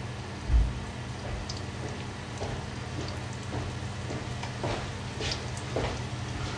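Baguette cubes frying in olive oil in a pan: a soft sizzle with scattered small crackles and pops. There is one low bump about half a second in.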